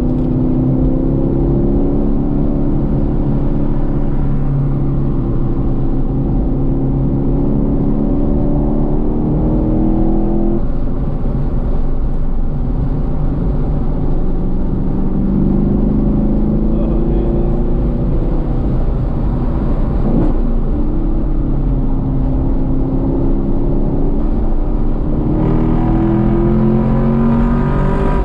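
Chevrolet Camaro ZL1 1LE's supercharged V8, heard from inside the cabin while driven hard on track. It rises in pitch on several pulls through the revs, and drops off suddenly about ten seconds in.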